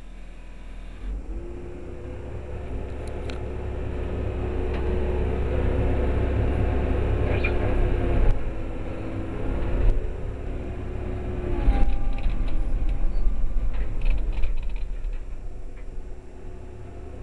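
Case 9020B excavator's diesel engine running and working the hydraulics, a low rumble that builds over the first few seconds, with a steady hydraulic whine that holds for several seconds, breaks briefly and returns before cutting off. A few sharp clunks come from about the middle onward.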